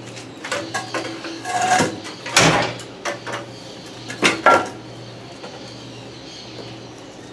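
Pieces of wood knocking and clattering together as they are rummaged through and pulled off a cluttered shelf: a series of irregular knocks over about four seconds, the loudest about two and a half seconds in and again near four and a half seconds. A steady machine hum runs underneath.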